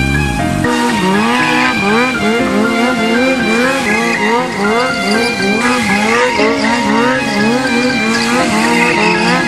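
Background music: a track of repeated sliding, siren-like notes that rise and fall in a steady quick rhythm, two to three to the second.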